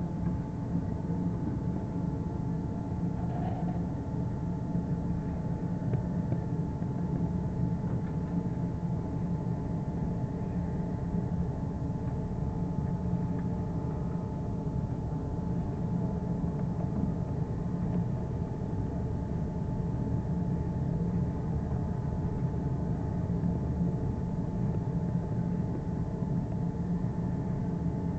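Steady low drone of a ship's engines and machinery under way, with a faint steady whine above it.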